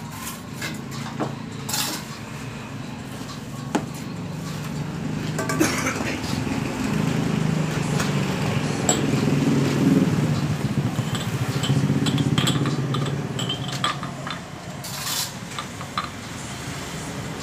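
A motor vehicle's engine hum passes on the street, swelling about halfway through and then fading. Over it are scattered clinks of glasses and dishes and a few knocks of a cleaver chopping roast pork on a board.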